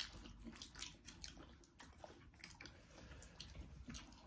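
Faint eating sounds: chewing momos, with scattered light clicks of chopsticks, several a second.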